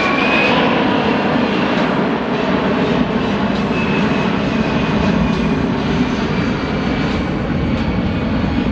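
Boeing C-17 Globemaster III's four Pratt & Whitney F117 turbofan engines as the jet flies past, a loud steady roar with a high whine near the start.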